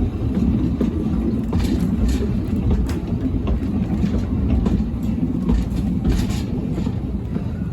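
Narrow-gauge train running steadily, a low rumble with scattered clicks from the wheels on the rails.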